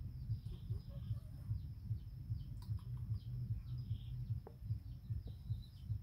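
Scattered short, high, falling chirps over a low, uneven rumble.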